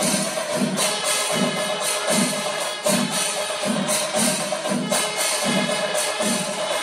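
Kerala temple percussion ensemble (chenda melam): drums beat a steady rhythm about two to three strokes a second, under clashing hand cymbals and a steady held note.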